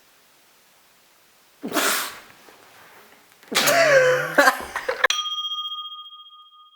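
A sneeze about two seconds in, then a longer, louder burst of noise, cut off by a single bell-like ding whose tone rings on and fades away.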